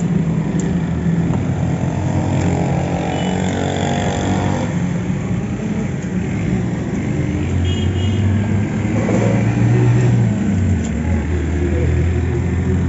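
Steady engine noise of motor vehicles running close by, a low hum that swells and eases. A few faint knocks of a knife on a wooden chopping block.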